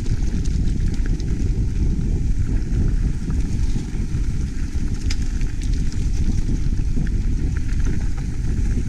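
Mountain bike descending a dirt trail: a steady low rumble of wind and tyres on the microphone, with scattered light clicks and rattles from the bike.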